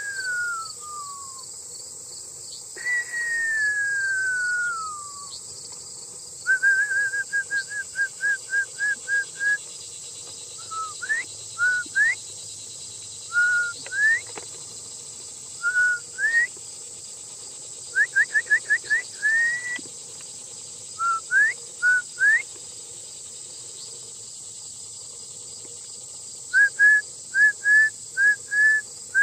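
Shepherd's whistle blown as sheepdog herding commands: two long falling notes, then a quick run of short repeated notes, several sharp rising notes, and near the end another run of short notes. Crickets chirp steadily behind.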